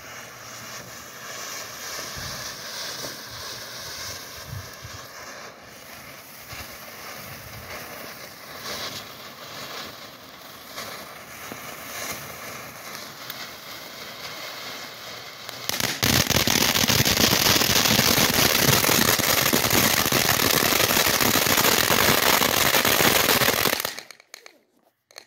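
Consumer fireworks fizzing and crackling. About sixteen seconds in, a much louder, dense crackling hiss sets in; it stops abruptly about eight seconds later.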